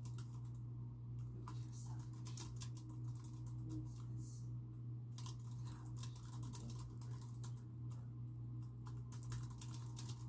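Typing on a computer keyboard: quick runs of keystrokes broken by short pauses, over a steady low hum.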